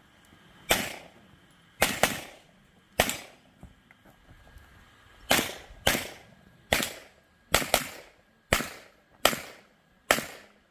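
Pistol shots fired repeatedly through a practical shooting course: about a dozen shots at uneven spacing, several fired as quick pairs, with a pause of about two seconds in the middle as the shooter moves between positions.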